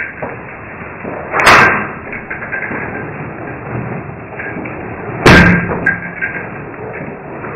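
Two loud thuds about four seconds apart, each with a short tail, over a steady background hiss.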